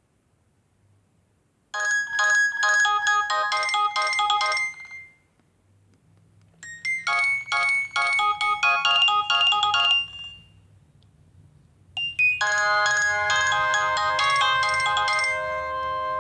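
Nokia N70 ringtones: electronic melodies in quick, bright notes. Two short phrases come after a couple of seconds of quiet, and a fuller tune with held notes starts about twelve seconds in.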